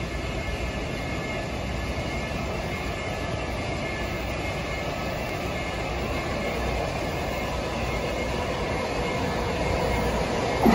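Washington Metro subway train approaching through the tunnel into an underground station: a steady rumble that grows slowly louder, then rises sharply near the end as the train comes into the platform.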